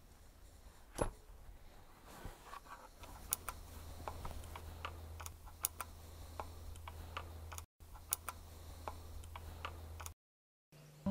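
Faint small clicks and ticks of a long hex key turning the stock bolt through the pistol grip of a synthetic rifle stock, with a sharper knock about a second in as the rifle is handled. A low steady hum comes in about three seconds in.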